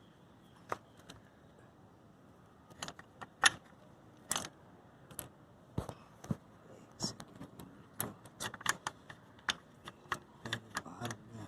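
Irregular light metallic clicks and clinks of the clutch cable and its fittings being handled and worked free. They are sparse at first and come faster in the second half.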